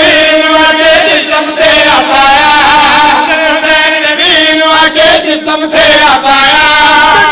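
A group of men chanting a Shia devotional refrain in unison into a microphone, with long held notes.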